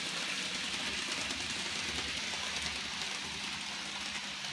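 N gauge model locomotive running on the layout at full power, a steady whir of its small motor and gears. The owners put its slow running and ticking down to a possible split gear or dirty contacts.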